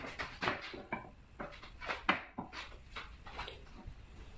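Short wooden knocks and clicks in a quick irregular series, the loudest about two seconds in: Douglas fir stretchers and domino tenons being handled and fitted into mortises for a dry fit.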